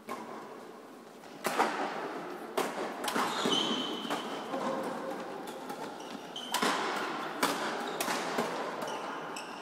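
Badminton rally in a reverberant sports hall: a series of sharp racket hits on the shuttlecock at irregular intervals, with shoe squeaks on the court floor.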